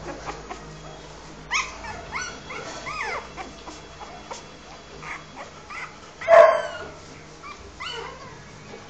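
Newborn Rottweiler puppy crying while being held: a string of short, high squeals that rise and fall in pitch, the loudest a little after six seconds in.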